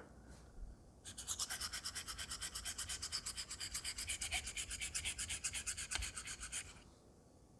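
Straight razor blade scraped rapidly back and forth on an Atoma 600 diamond plate, a fast, even rasping of many strokes a second that starts about a second in and stops near the end. The honing is grinding a new bevel on a blade that has none.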